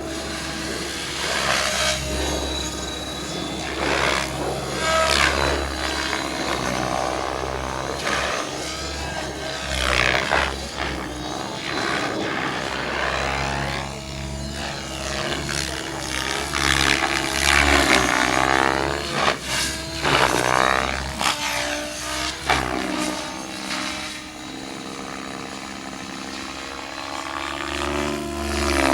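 JR Vibe 90 E12 electric RC helicopter flying, its rotor blades swishing and motor whining as pitch rises and falls again and again, with several louder swells as it passes close.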